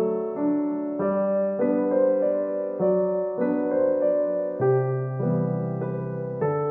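Background solo piano music, notes and chords struck one after another at a steady, moderate pace.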